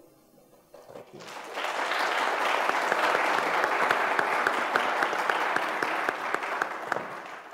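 Audience and panel applause. The clapping starts about a second in, swells, holds steady, and begins to die away near the end.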